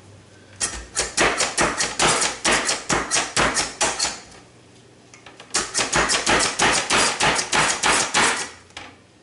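Plunger-style Slap Chop hand chopper being slapped down repeatedly on pickles: two runs of rapid plastic strikes, about five a second, with a short pause between them. The chopper is apparently broken: its blade is not turning between strokes, so it leaves big chunks.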